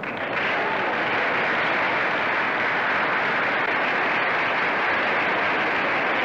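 Steady, even rushing hiss on an old newsreel soundtrack, with no separate clicks or voices.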